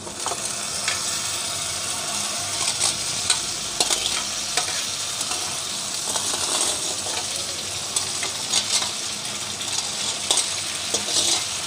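Tomato-onion masala sizzling in hot oil in a steel kadhai as drained macaroni is tipped in from a steel colander. A spatula scrapes the pasta in, giving scattered scrapes and clinks of metal against metal.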